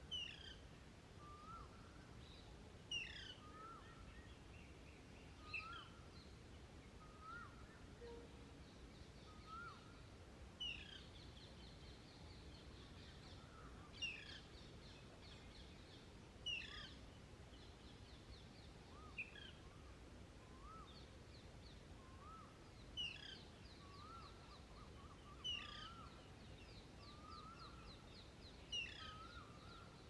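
Female Alexandrine parakeet begging for food from the male: a loud, harsh call every two to three seconds, with softer short notes and quick chattering runs in between.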